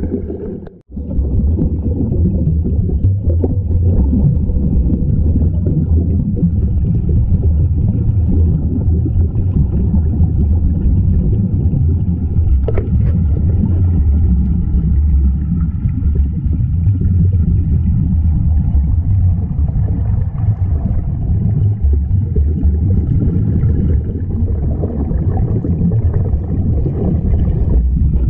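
Steady low underwater rumble picked up by a camera in a waterproof housing near surface-fed sea-walk helmets, with a brief drop-out about a second in.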